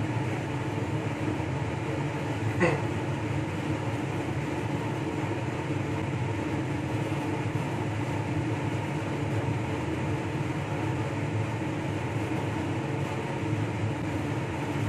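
Steady whir of a fan or air blower with a low hum running under it. A single short click comes a little under three seconds in.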